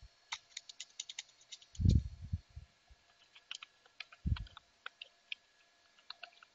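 Computer keyboard typing: a quick, uneven run of key clicks as an IP address is keyed in, with two louder dull thumps about two and four seconds in.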